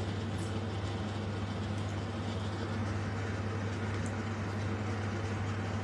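Steady low electrical-sounding hum with an even hiss over it: the room's background tone between remarks, unchanging throughout.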